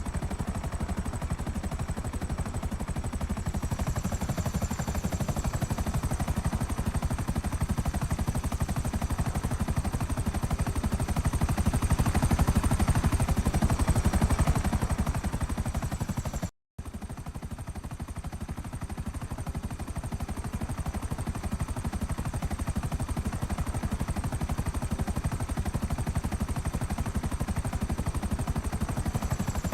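Helicopter rotor chop, a fast, even pulsing with a thin high whine above it. It swells slightly, cuts out for a moment about halfway through, then carries on steadily.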